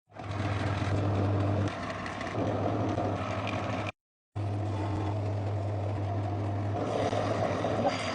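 A motor running with a steady low hum; the sound cuts out completely for about half a second near the middle, then resumes.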